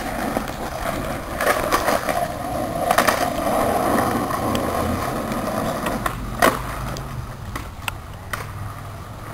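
Skateboard wheels rolling on asphalt, with sharp clacks of the board hitting the pavement several times, the loudest about six and a half seconds in.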